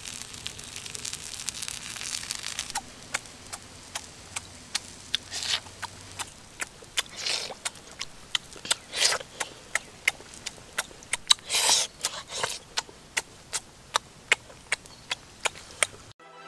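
Close-up eating sounds of a person eating grilled fish: repeated sharp lip-smacking and chewing clicks, several a second, with a few longer wet squishing chews. A light hiss runs under the first few seconds.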